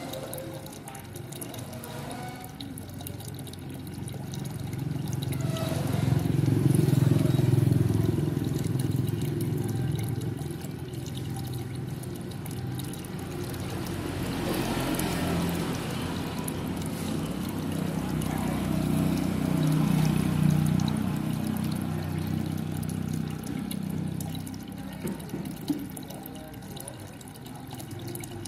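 Water falling into a garden fish pond from a thin inflow stream, a steady splashing pour. Low rumbles swell up around six seconds in and again around twenty seconds.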